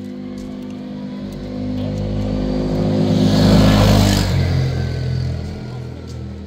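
A motor vehicle driving past close by. Its engine and tyre noise grow to a peak about three and a half seconds in, then the engine note drops in pitch and fades as it goes away.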